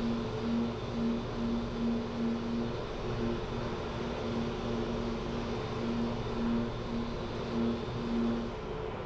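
Dual-action (DA) orbital sander running on a plastic bumper with 180-grit paper. Its steady hum swells and fades in a quick rhythm as it works the surface, then cuts out shortly before the end.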